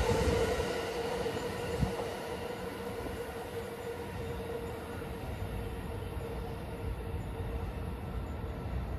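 A JR East E235 series electric train pulling away and receding down the line. Its running noise fades over the first couple of seconds to a low, steady rumble with a faint steady hum.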